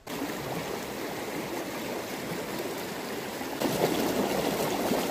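Shallow creek water rushing and gurgling over rocks, a steady flow that steps up louder about three and a half seconds in.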